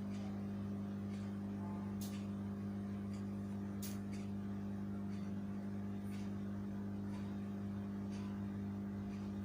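A steady low hum with scattered faint clicks every second or two.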